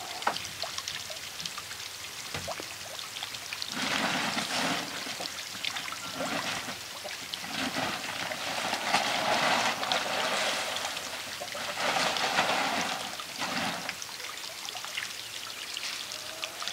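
Water pouring and trickling steadily from a rock fountain's spout into a stone-rimmed pond, louder and rougher through the middle stretch.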